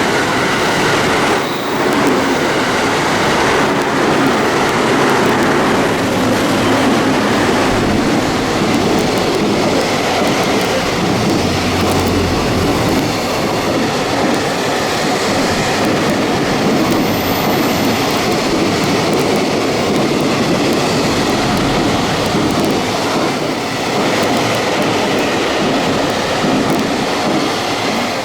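Train passing through a station at speed without stopping: a loud, steady rush of wheel and running noise with rail clatter that lasts nearly half a minute and eases off just at the end.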